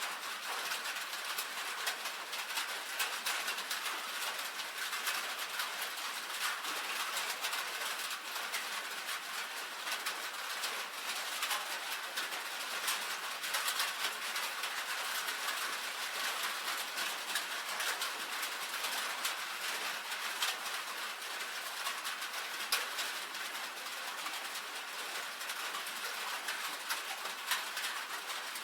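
Rain pattering on a tin roof: a steady, dense patter of countless small drop clicks.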